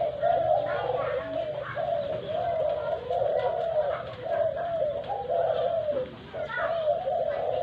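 Doves cooing, one coo after another, with a short break about six seconds in.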